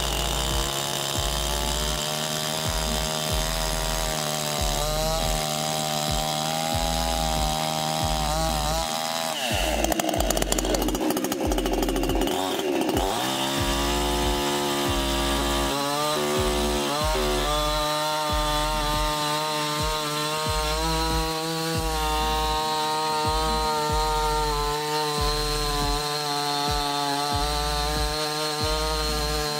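A 62 cc two-stroke gasoline chainsaw with a 28-inch bar running at high speed, cutting through a thick log. Its pitch sags and recovers a few times around the middle as the chain loads up in the wood, then holds steady.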